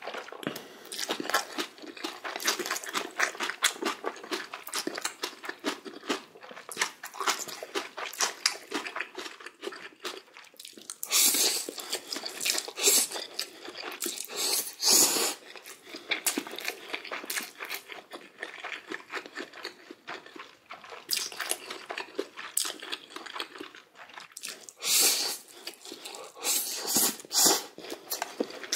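A person eating ramen noodles close to the microphone: rapid wet chewing throughout, broken by a few louder, longer slurps spread through the stretch.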